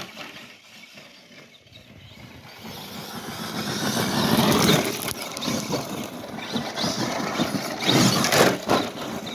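Electric RC truck driving over rocky ground, its motor and drivetrain whining up and down as the throttle is worked. It surges loudest about four to five seconds in and again near eight seconds.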